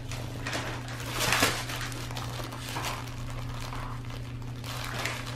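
Fabric plush dog toys rustling and crinkling as a French bulldog grabs and mouths them, with the loudest scuffle about a second and a half in. A steady low hum runs underneath.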